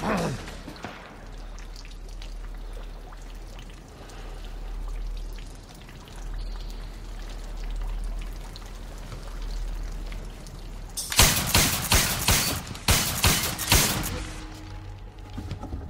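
A low steady rumble, then a rapid string of sharp bangs over about three seconds near the end.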